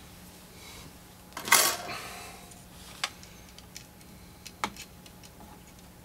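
Handling noise at a soldering bench: a short rustling clatter about a second and a half in, then a few small sharp clicks and ticks as the soldering iron and a wire lead are brought to the capacitor terminals on the metal amplifier chassis. A faint steady low hum runs underneath.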